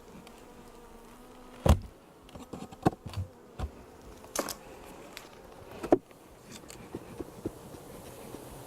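Honeybees buzzing around an open hive, with several sharp knocks and clicks as the wooden hive box is opened; the loudest knock comes about two seconds in.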